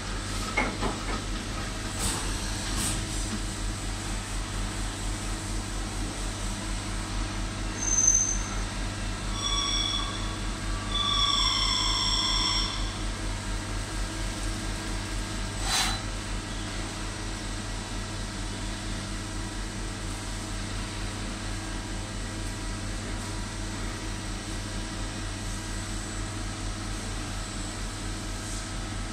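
CNC vertical machining centre running with coolant flowing and an M8 tap in the spindle: a steady machine hum, with a few short whining tones from about eight to thirteen seconds in and a sharp click about sixteen seconds in.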